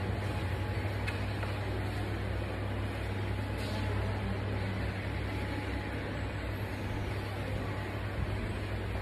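Steady low electrical hum with an even hiss behind it, unchanging throughout: room background noise.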